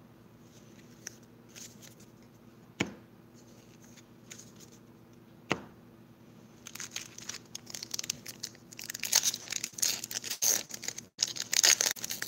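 Two sharp taps, then from about halfway a Pokémon Lost Thunder foil booster pack wrapper crinkling and tearing as it is opened. The crinkling is loudest near the end.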